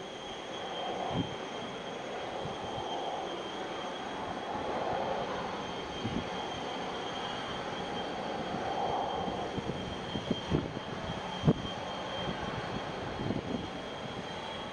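Distant Boeing 737-800's CFM56 jet engines at taxi power: a steady whine over a noisy rumble. A few short knocks come in the second half.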